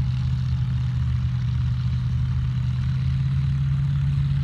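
Vehicle engine running steadily with a low, even hum that holds one pitch.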